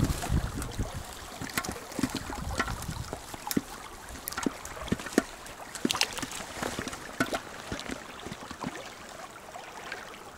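Shallow stream running over a stony bed, with frequent small clicks and rustles close by from clothing and handling of the fishing gear.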